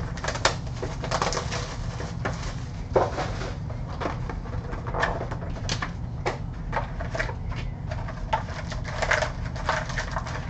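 Trading-card packs and cards being handled: irregular crinkling and rustling of pack wrappers and cardboard, with small clicks as the box is opened and the cards are sorted, over a steady low hum.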